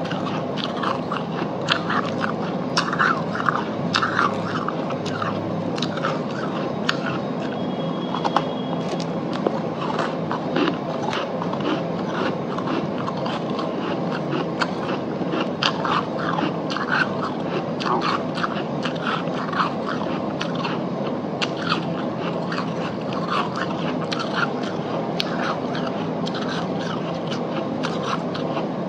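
Freezer frost being chewed, in many crisp, irregular crunches over a steady low hum.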